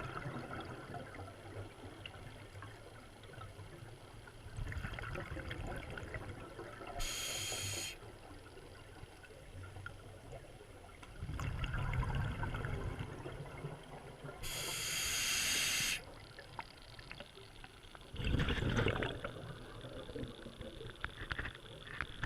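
Scuba diver breathing through a regulator underwater: two hissing inhalations and several low bursts of exhaled bubbles, one breath every six to seven seconds.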